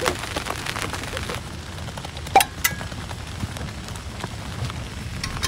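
Sandstorm wind rumbling steadily on the microphone, with scattered ticks and crackles and a sharp click about two and a half seconds in.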